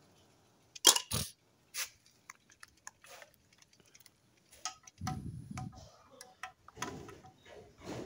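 Plastic clicks and taps from handling a toy fishing rod and hard plastic toy fish: a few sharp clicks about a second in, then scattered light ticks and soft rustling.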